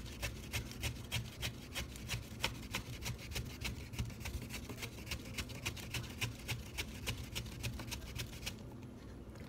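A peeled green banana slid rapidly back and forth over the blade of a wooden hand mandoline, about four quick rasping strokes a second, each cutting off a thin slice for chips. The strokes stop near the end.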